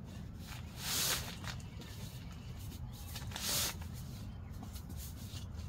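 A deflated Mr. Young air mattress being pressed down and rolled up tight, giving two short swishing rustles, about a second in and about three and a half seconds in, as the last of the air is squeezed out. A low steady rumble runs underneath.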